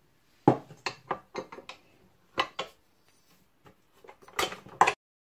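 Irregular knocks and clinks on a stainless steel stand-mixer bowl, about a dozen over four seconds, with a louder cluster near the end.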